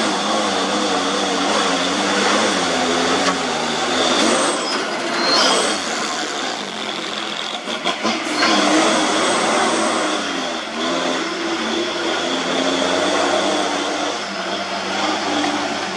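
Diesel engine of a loaded Hino container truck labouring at low speed up a slippery, damaged climb, its pitch wavering with the throttle.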